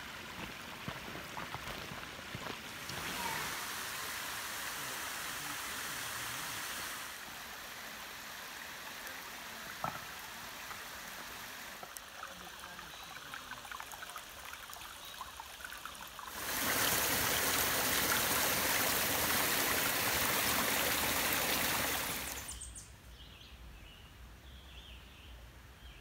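Rushing stream water, a steady hiss that changes suddenly in level several times and is loudest for about six seconds past the middle. Near the end it drops to a quieter background with a few short bird chirps.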